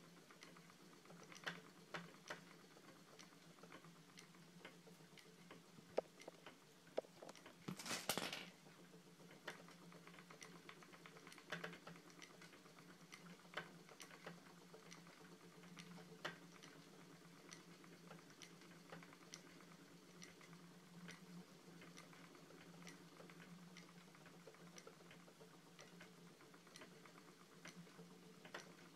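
Faint spinning-wheel sounds during long-draw spinning: soft, irregular clicks and ticks from the wheel and treadle every second or two over a low steady hum, with one short louder rustle about eight seconds in.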